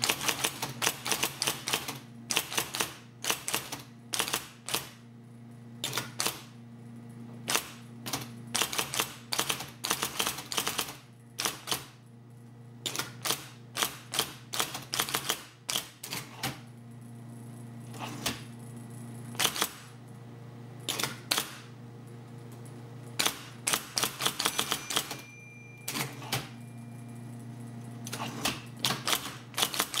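IBM Correcting Selectric III electric typewriter typing in quick bursts of sharp key strikes with short pauses between them, over the steady hum of its running motor.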